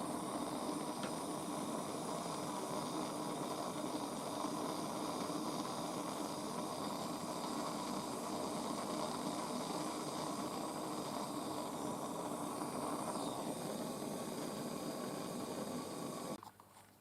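Gas blowtorch flame burning with a steady hiss while heating the copper to make the solder flow, then shut off suddenly near the end.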